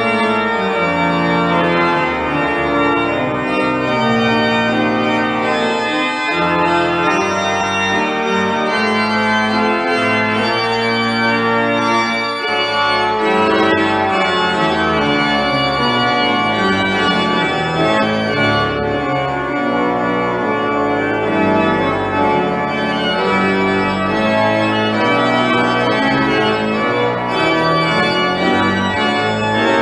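Church organ played from a two-manual console: a continuous piece of sustained, changing chords with a moving bass line, at a steady level.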